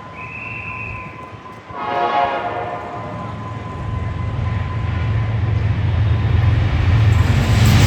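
A train horn sounds one blast about two seconds in, after a short high whistle just before it. The low rumble of an approaching train then builds steadily louder through the rest of the clip.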